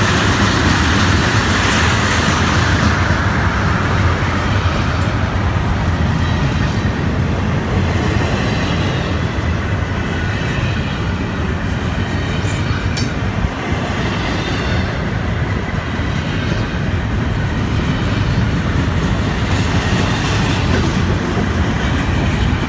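Freight train cars (tank cars, boxcars and container cars) rolling past close by: a steady, loud rumble of steel wheels on rail, with occasional sharp clicks and clanks.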